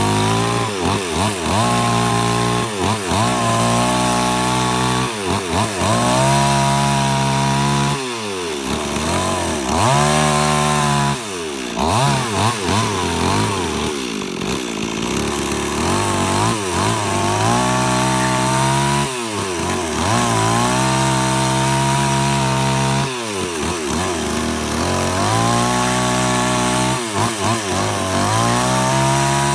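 Chainsaw mill ripping along a log: the two-stroke chainsaw engine runs at high revs under load, its pitch sagging sharply several times as the chain bogs in the cut and then climbing back.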